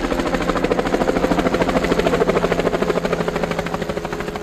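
Helicopter flying past with a rapid, steady chop of its rotor blades over the steady hum of the engine, swelling slightly and then easing off a little near the end.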